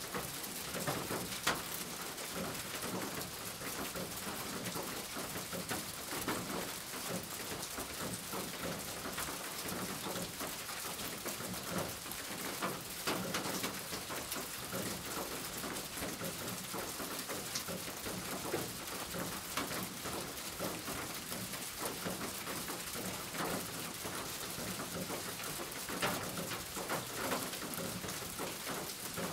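Graphite pencil scratching and scraping on paper in short, uneven strokes, a steady hiss dotted with small ticks.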